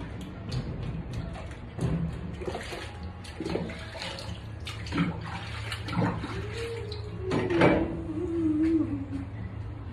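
Water sloshing in a stainless steel sink and glasses clinking as bar glassware is washed and rinsed by hand, with a scatter of sharp clinks, the loudest about seven and a half seconds in.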